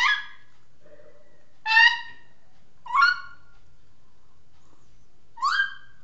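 Young African grey parrot giving four short, rising squawks a second or two apart, the food-begging calls of a hand-fed chick.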